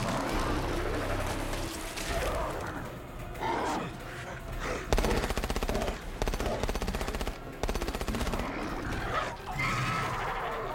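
Rapid automatic gunfire in a film soundtrack: a long burst of evenly spaced shots lasting about three seconds around the middle. Men scream before it and again near the end.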